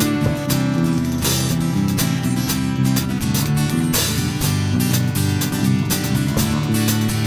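Instrumental break of a live acoustic band: strummed acoustic guitar over bass guitar and drums, keeping a steady beat.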